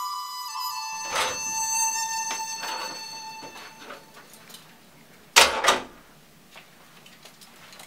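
Held music notes fade out over the first few seconds. Then a glass-panelled office door shuts with a loud knock and a second knock just after it.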